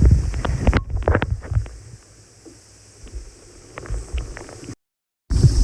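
Wind buffeting the microphone with knocks from handling. The rumble is loud for about two seconds, then drops to a quieter rush with a few light taps. Near the end the sound cuts out completely for about half a second before the loud rumble comes back.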